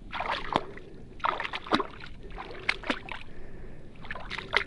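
Feet wading through shallow water and seagrass, an uneven series of splashing, sloshing swishes.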